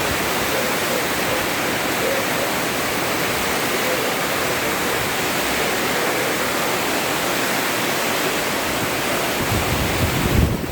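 Heavy rain pouring down in a dense, steady hiss. Near the end, low rumbling gusts of wind buffet the microphone.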